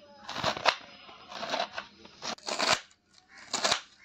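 Kitchen knife slicing a cabbage wedge into thin shreds on a wooden chopping board: crisp crunching cuts in short bursts about once a second, the blade tapping the board.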